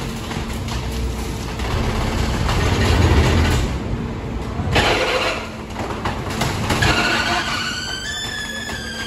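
Forklift and rear-loader garbage truck engines running with a low rumble. About five seconds in, a short clatter as the stack of scrap wood slides off the forks into the truck's hopper. Near the end a steady high whine joins in.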